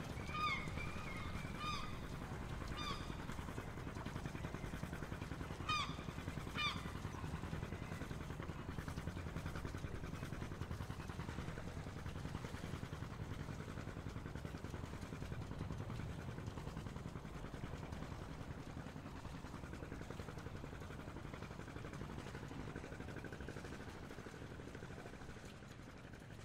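Background street ambience: a steady low rumble, with a handful of short, high honks in the first seven seconds, the loudest pair about six seconds in.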